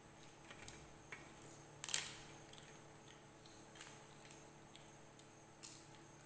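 Faint eating sounds: fingers mixing rice and dal on steel plates, and chewing. Scattered soft clicks and crackles, the sharpest just before two seconds in.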